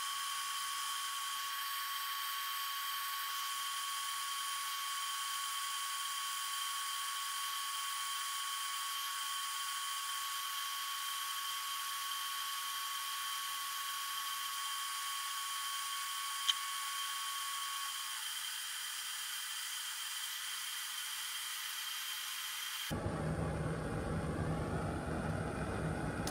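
Backpacking gas stove burning steadily under a pot of about 750 ml of water being brought to the boil: a steady hiss with a thin steady whistle in it that stops about two-thirds of the way through. A single short tick comes a little past the middle, and near the end a lower rumble comes in.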